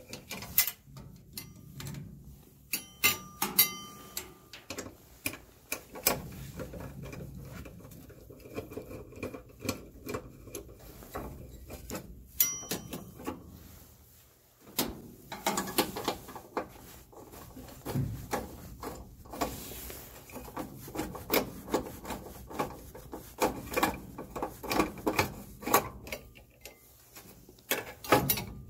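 A screwdriver working the screws out of a furnace draft inducer blower's metal housing: irregular clicks, taps and scraping of the tool and parts, with a couple of brief metallic rings.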